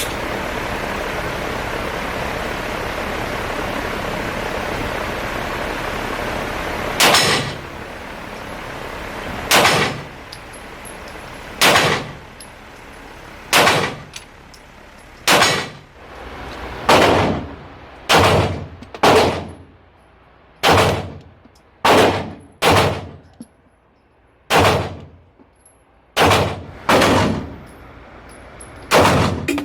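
Smith & Wesson M&P 2.0 Metal pistol fired about fifteen times, slowly at first and then quicker, each shot ringing out with a short echo. Before the first shot, about seven seconds of steady rushing noise from the range's fan.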